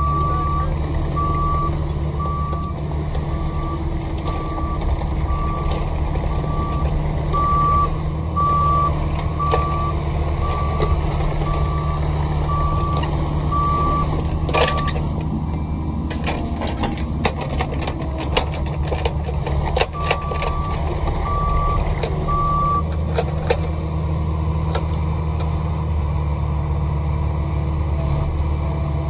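Diesel excavator engine running steadily while a backup alarm beeps about once a second. The beeping stops about halfway, right at a sharp crack. A run of metallic clanks and knocks follows, with three more beeps in the middle of them.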